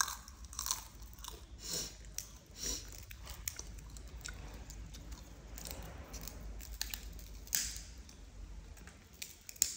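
Small monkeys chewing crunchy puffed snack pieces: irregular crisp crunches and crackles, a few louder ones toward the end.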